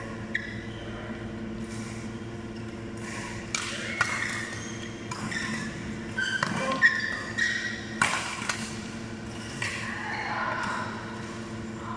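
Badminton rackets striking a shuttlecock during a doubles rally: a string of sharp, irregularly spaced hits over a steady hum.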